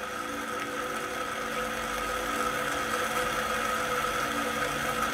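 Steady mechanical whirring hum with a few constant tones from the slowly turning pointer of a spinning answer wheel.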